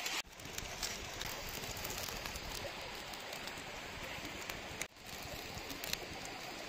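Open wood fire crackling under a wok of curry gravy simmering over it: a steady hiss with scattered small pops.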